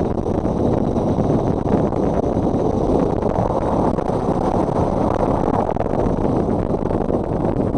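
Steady rush of wind and road noise from a motorcycle on the move, with the wind buffeting the microphone.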